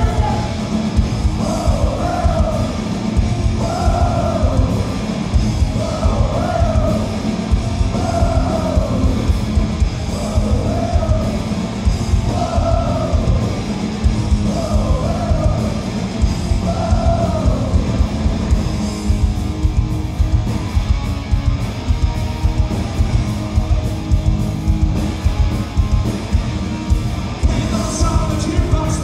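Live punk rock band playing loudly: distorted electric guitars, bass and drums. A rising-and-falling melody repeats about every two seconds over the first half, the band carries on without it, and singing comes back near the end.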